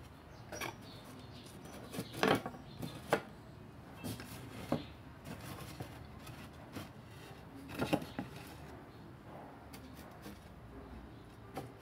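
Thin wooden boards being handled and set in place, with a few irregular knocks and clatters of wood; the loudest comes about two seconds in, and another near the eight-second mark.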